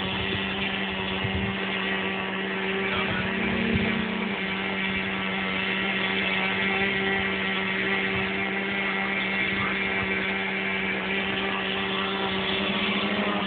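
Electric motor of an MXS-R radio-controlled aerobatic plane whining steadily in flight, its pitch a little higher for a second or two about three seconds in.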